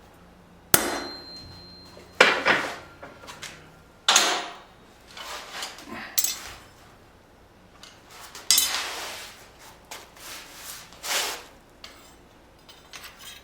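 Hammer blows on hot leaf-spring steel at the anvil: about six irregular strikes a second or two apart, some leaving a brief metallic ring.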